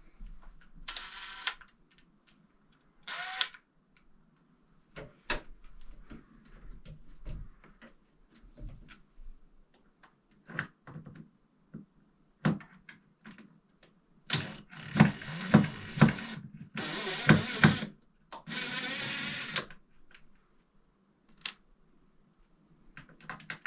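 Cordless power drill/driver run in short bursts, the longest cluster a little past halfway, with clicks and knocks of handling the tool and fittings in between.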